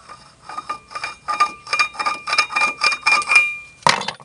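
Rapid metallic clicking, about five clicks a second, each with a ringing tone, from hand tools and steel parts of a car's front disc brake being worked on, then a louder metal clank near the end.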